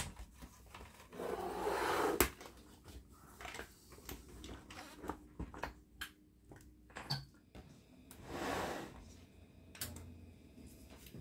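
Plastic casing of a CRT monitor being handled and pushed into place: scattered clicks and knocks, with two longer scraping rushes, one about a second in and one about eight seconds in. Near the end, a click as the front power button is pressed, followed by a brief low hum.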